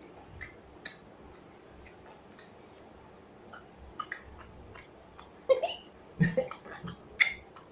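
Small child making funny mouth noises: soft scattered clicks and smacks, then louder short voice-like sounds in a quick series from about five and a half seconds in.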